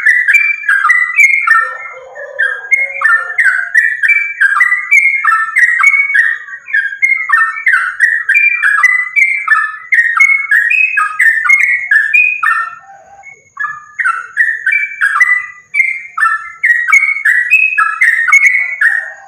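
Yellow-vented bulbul (trucukan) singing a continuous string of quick, bubbly chattering phrases, one note close on another, in the rapid 'gacor' style used to provoke other trucukan into song.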